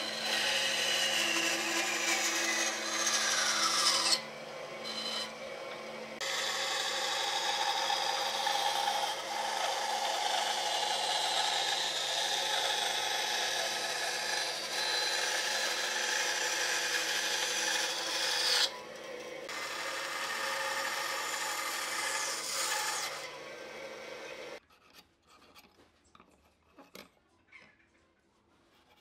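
Bandsaw running and cutting through a thick softwood block along a curved line. The cutting noise falls away briefly about four seconds in and again about two-thirds through while the motor keeps humming. Near the end it stops abruptly, leaving faint scratches of a pencil drawn along a steel ruler.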